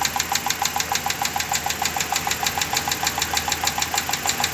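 2014 Dodge Durango engine running with a rapid, even ticking of about ten ticks a second, which the mechanic puts down to a noisy valve lifter.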